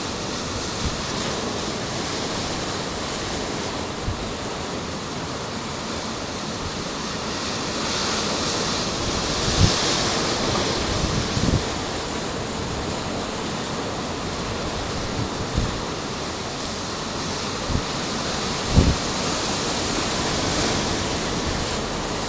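Steady rushing noise, swelling slightly about a third of the way in, with several brief low thumps of wind buffeting the microphone.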